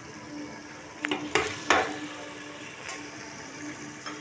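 Meat-and-potato curry frying and sizzling in a pressure cooker pot as a metal spoon stirs it (bhunai, the frying-down stage). The spoon scrapes and knocks against the pot a few times about one to two seconds in, and more lightly later.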